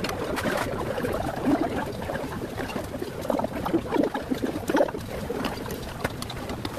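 Close-up eating noises: chewing a mouthful of noodles and octopus, with irregular clicks of metal chopsticks and a spoon against the bowl over steady restaurant background noise.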